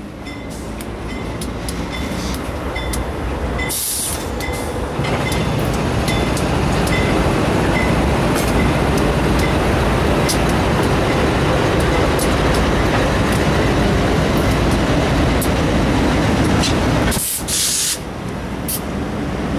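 A consist of GE four-axle diesel freight locomotives rolling slowly past: a steady engine rumble with scattered sharp clicks from the wheels, growing louder over the first few seconds as the units come alongside, then holding. The level dips briefly near the end.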